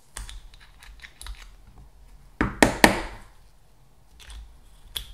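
Small metal and plastic alternator parts being handled and fitted by hand: scattered light clicks and taps, with a cluster of about three sharp clicks about two and a half seconds in.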